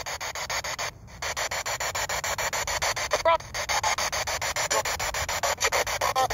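Spirit box (ITC radio-scanning device) sweeping through radio stations: a steady hiss of static chopped about eight to ten times a second, with brief snatches of broadcast sound.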